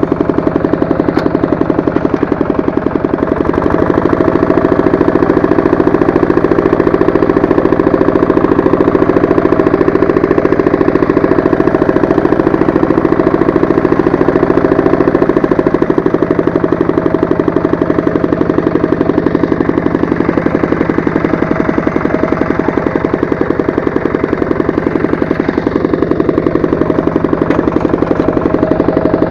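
Walk-behind tractor's engine running close to the microphone with a rapid, even firing beat. Its revs rise about three to four seconds in and fall back about sixteen seconds in.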